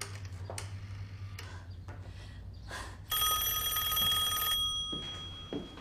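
Old-fashioned desk telephone bell ringing an incoming call: one rapid ring of about a second and a half, starting about three seconds in, then dying away.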